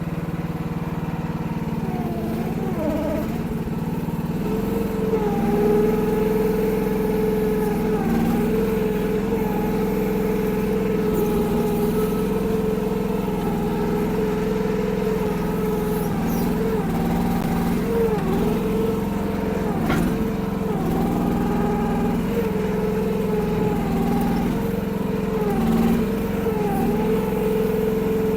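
Kymron mini excavator's 14 hp Briggs & Stratton engine running steadily, its pitch sagging briefly and recovering every few seconds as the hydraulics take load while digging. It gets a little louder about four and a half seconds in.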